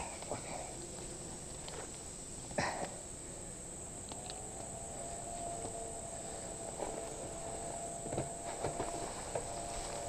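Steady high-pitched insect chorus, with a few short rustles and knocks of a mountain bike being handled in thick brush, one at the start and one about two and a half seconds in.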